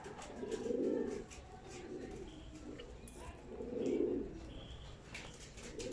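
Domestic pigeons cooing: two long, low coos, about a second in and around four seconds in, with fainter coos between.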